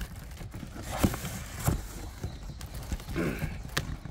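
A cardboard box and its packaging being handled and rummaged through, with a few sharp knocks and taps against the cardboard.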